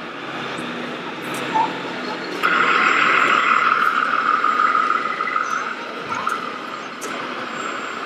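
Radio-controlled model trucks and construction machines running over a background of crowd chatter. A louder, steady hiss-like mechanical noise cuts in about two and a half seconds in and eases off about three seconds later.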